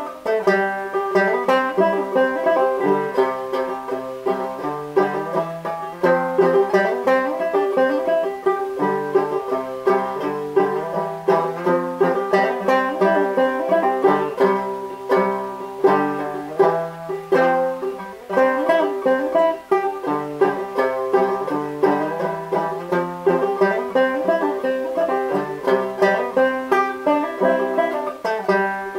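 Solo banjo played clawhammer style, a simple tune in the key of D: quick plucked notes in a steady rhythm over a note that keeps ringing underneath.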